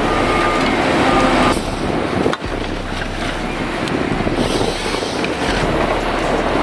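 John Deere 1270G forestry harvester running and working on a steep slope: a loud, steady machine noise with a thin high whine over the first second and a half and a brief break about two and a half seconds in.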